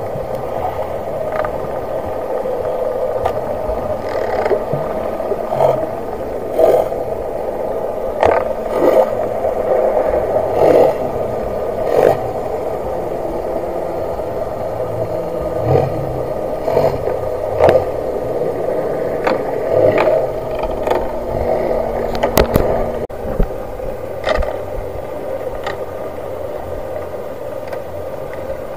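Muffled underwater sound through an action camera's waterproof housing: a steady dull rush of water with irregular clicks and knocks about once a second, over a faint low drone that slowly wavers in pitch.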